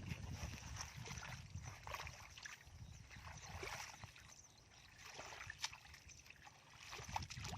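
Shallow water sloshing and splashing faintly, with scattered small irregular splashes and ticks, as when wading and handling fish by hand.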